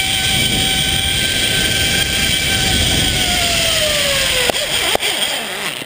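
Zipline trolley's steel pulleys whining along the cable over a rush of wind, the whine falling in pitch as the trolley slows toward the end of the line. Two sharp knocks follow, about half a second apart, just before it stops.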